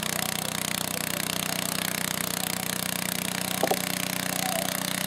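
Garden tractor's engine running hard and steady under full load as it drags a weight-transfer pulling sled. A short, sharp sound cuts in about three and a half seconds in.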